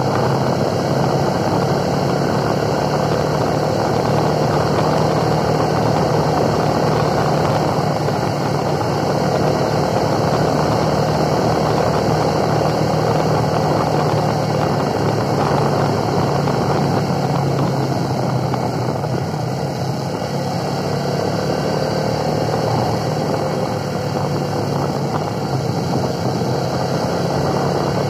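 Motorcycle engine running steadily while riding, under a broad steady rushing noise, easing slightly about two-thirds of the way through.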